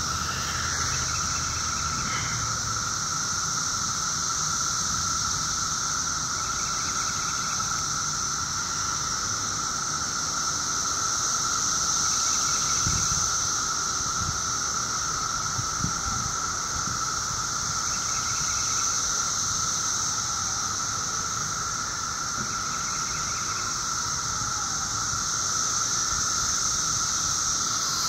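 Dense chorus of male 17-year periodical cicadas giving their mating call: a steady, overwhelming, high-pitched squeal with a lower steady drone beneath it, unbroken throughout.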